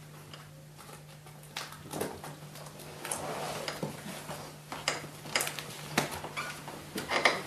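Paper folders and a binder rustling and knocking as a stack is picked up from the floor and handled, a string of short clicks and rustles starting about a second and a half in. A steady low hum runs underneath.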